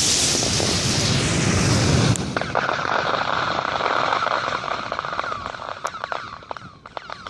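A loud rushing whoosh for about two seconds, then a steady fizzing crackle of many small pops that slowly fades, as from a firework-type device burning.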